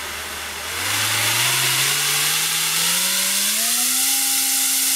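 RaceStar 2205 2300 KV brushless racing-quad motor spinning a 3D-printed 5-inch three-blade propeller on a thrust test stand. It is throttled up: a whine that climbs in pitch over about three seconds and then holds steady, over a loud rush of air from the propeller.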